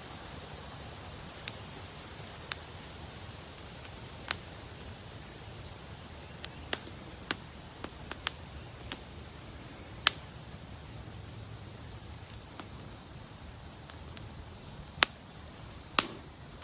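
Outdoor ambience: a steady hiss with sharp clicks at irregular moments, several louder ones about ten seconds in and near the end, and faint short high chirps.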